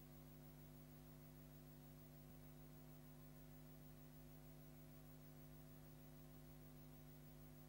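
Near silence with a faint steady hum made of a few low tones.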